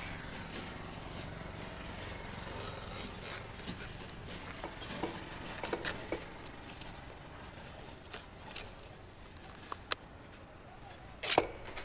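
Irregular crackling and rustling of dry palm fibre and leaf sheath being pulled and handled by hand, with a few sharp snaps.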